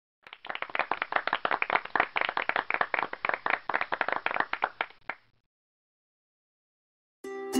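Canned clapping and applause sound effect, dense and even for about five seconds, then it stops. A plucked ukulele tune starts near the end.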